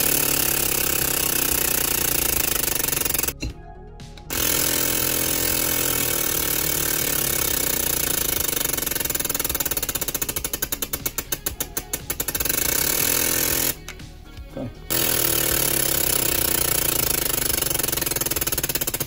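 Fuel injectors being pulsed on a test bench while spraying carb cleaner: a fast, steady rattling buzz with a spray hiss. It cuts out twice for about a second, once near the start and once about two-thirds of the way through.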